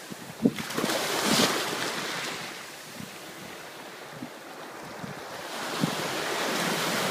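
Shallow surf washing in over sand, the foaming wash swelling about a second in and again near the end, with occasional low bumps of wind on the microphone.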